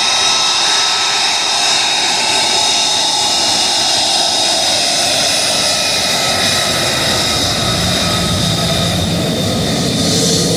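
Military jet engine running loud and steady, a high whine over a broad rushing noise. Near the end a low steady hum joins in.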